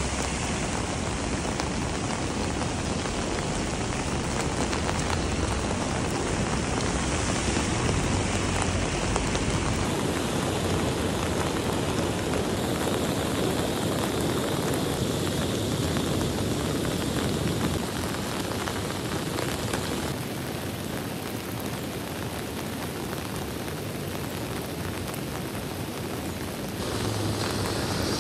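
Heavy rain pouring down, a steady hiss that dips slightly about two-thirds through and comes back up near the end.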